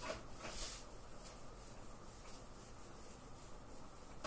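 Faint rubbing and stroking on a whiteboard, with one louder swipe about half a second in.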